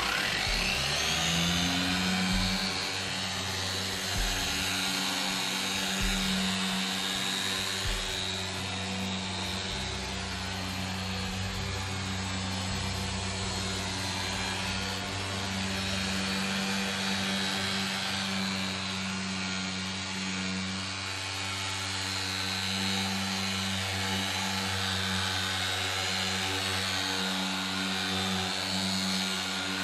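Corded electric car polisher with a foam pad, coming up to speed right at the start and then running steadily. It is buffing polishing compound into wet-sanded car paint.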